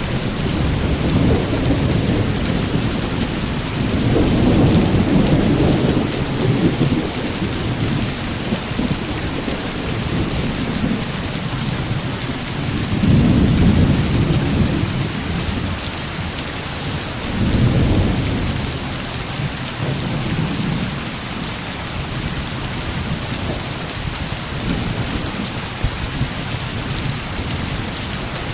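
Heavy rain falling steadily with a constant hiss, while thunder rumbles low several times, swelling about four seconds in, again near the middle and shortly after.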